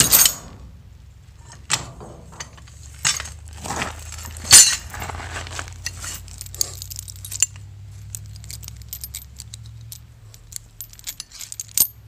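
Heavy steel chain links clinking and rattling as they are handled: a few sharp clanks in the first five seconds, the loudest about four and a half seconds in, then lighter rapid rattling and clicks.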